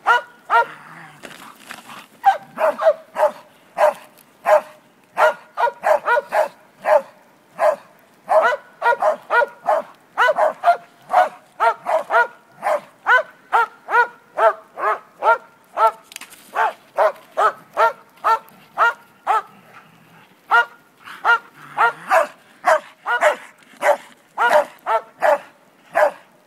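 A dog barking repeatedly, two or three barks a second, with a few brief pauses. The barks are aimed at a decoy in a bite suit.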